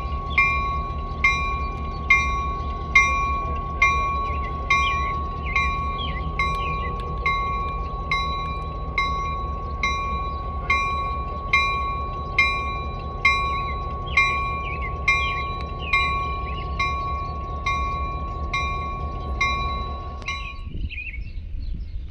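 Diesel switcher locomotive's bell ringing steadily, a little more than one strike a second, over the low rumble of the locomotive's diesel engine; both stop abruptly shortly before the end.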